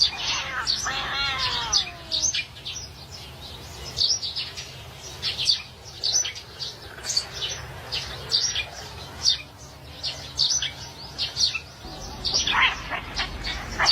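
Small birds chirping repeatedly in quick, high-pitched bursts, with one wavering, pitched call about a second in.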